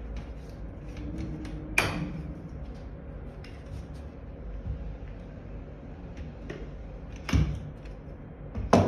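Plastic wheels being fitted onto the metal axle rod of a folding shopping-trolley frame: small clicks and rattles, a sharp knock about two seconds in, and two louder knocks near the end as the metal frame is handled.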